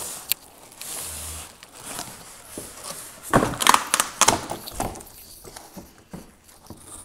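Boxed turntable in plastic wrap and foam end caps sliding out of its cardboard carton: plastic film crinkling and foam and cardboard scraping against each other, with a few sharp clicks and the loudest scraping about three to four seconds in.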